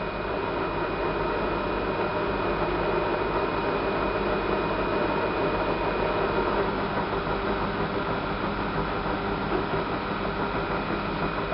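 Cosmos metal lathe running steadily at a low belt-driven speed while the cutting tool turns a roughly 40 mm piece of metal stock round (truing it up): an even machine drone with a few constant whining tones over it.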